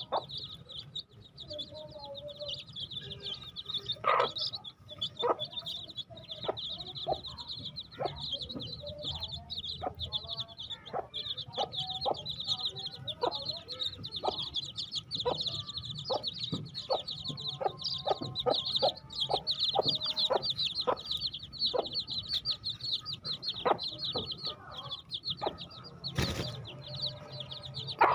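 A group of baby chicks chirping all at once in a dense, continuous peeping, with scattered short clicks throughout and one louder click near the end.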